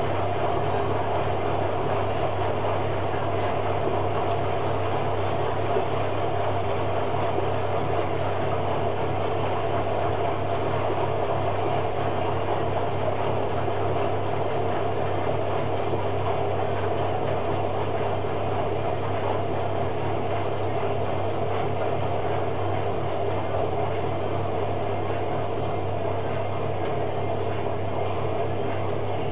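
Hoover Logic 1200 washing machine running with a steady motor hum.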